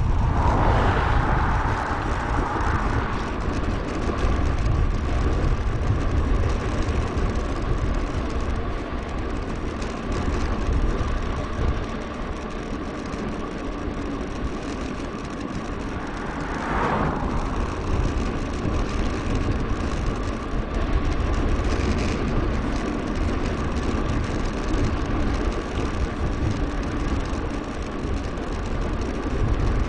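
Wind rumbling on a bike-mounted action camera's microphone, mixed with tyre and drivetrain noise from a mountain bike being ridden on a road. A faint steady whine runs under it, and a brief louder swell comes past about two-thirds of the way through.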